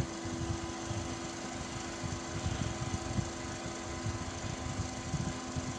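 Noctua NF-P12 redux 120 mm PC case fan running on its low speed setting: a steady soft whir of air with two faint steady hum tones.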